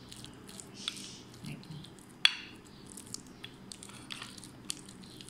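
Plastic spoon mixing shredded chicken and chopped egg filling in a glass dish, giving soft squishing and scattered sharp clicks against the glass, the loudest a little after two seconds in.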